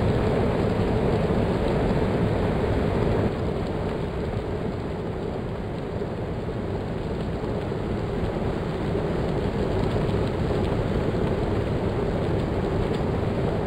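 Steady rush of wind on the microphone with road noise from a bicycle on the move, easing slightly about three seconds in.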